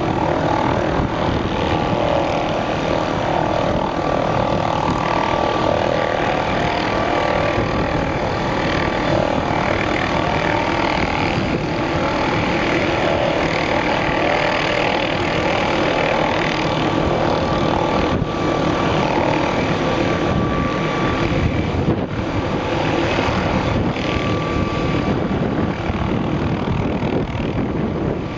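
MD 520N NOTAR helicopter in a low hover: a steady turbine whine over the continuous rush of the rotor, holding an even pitch and level throughout.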